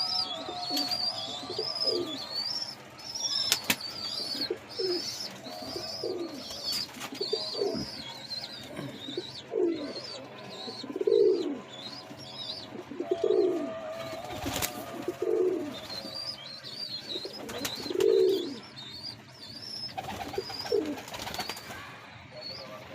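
Pigeon squabs giving rapid, high-pitched begging cheeps, about two a second, with lower, falling pigeon coos breaking in every second or so. There are a couple of sharp clicks.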